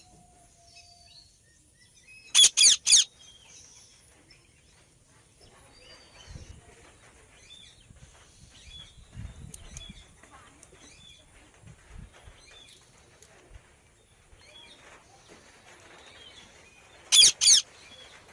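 Indian ringneck parakeet calling: three loud, harsh shrieks in quick succession about two seconds in and two more near the end, with soft chirps in between.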